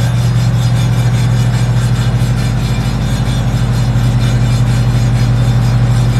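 A motor running with a steady hum, with a rough scrubbing noise over it as a wheel rim is cleaned.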